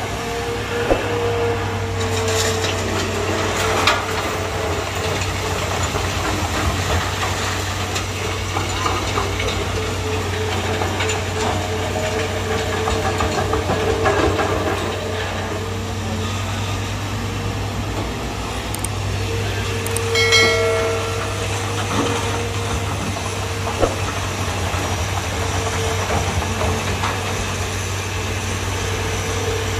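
Hitachi hydraulic excavator's diesel engine running steadily while it loads sand into a dump truck, with a few sharp knocks and a brief higher-pitched tone about two-thirds of the way through.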